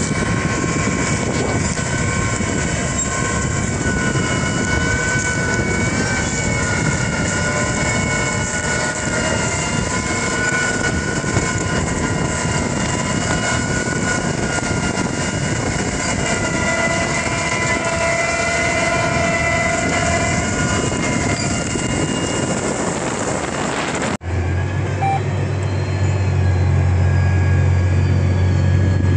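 Large farm tractor running under load as it pulls an 8-row Paratill deep-tillage plow through the ground, heard from outside as a wide hiss with steady whining tones. About 24 seconds in it cuts to inside the tractor cab, where a deep, steady engine drone takes over.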